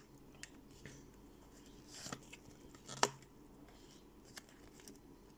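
Glossy tarot cards being handled: a few faint clicks and short swishes as cards are slid and tapped against the deck and table, with a sharper snap about three seconds in.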